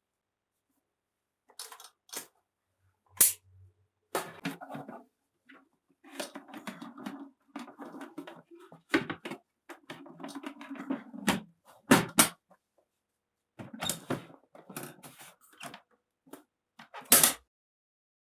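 Olympia Monica manual portable typewriter being worked: irregular mechanical clacking and clatter, broken by several sharp, loud strikes.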